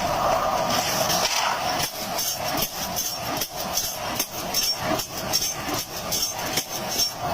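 Machinery clattering, with a run of short knocks at roughly three a second.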